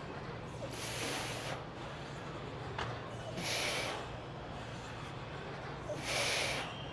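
A man breathing hard through leg press reps: three sharp, hissing exhales about two and a half seconds apart, over a steady low hum.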